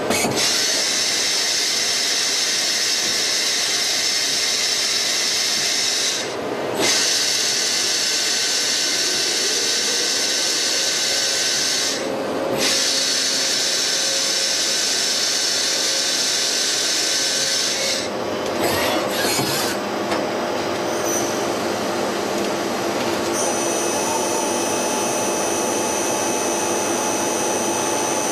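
Miyano BNA-42DHY CNC lathe running a machining cycle: a steady, loud hissing cutting noise with several high whining tones. It breaks off briefly twice, about six and twelve seconds in, and changes in the last few seconds as new steady whines come in.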